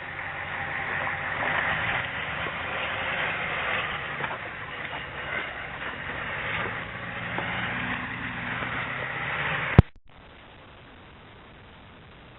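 A vehicle running with a steady rushing noise over a low engine hum. It ends in a sharp click and cuts off suddenly near the end.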